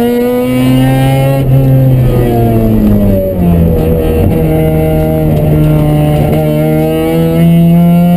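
Mazda RX-7's rotary engine heard from inside the cabin under track driving. The revs climb, then fall away between about two and three seconds in, hold steady through a turn, and begin rising again near the end.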